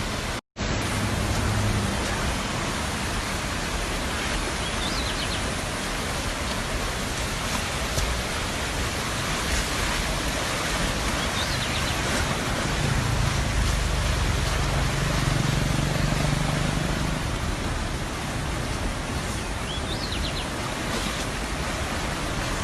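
Steady rushing noise of floodwater, with a brief cut about half a second in and a low vehicle engine hum at times.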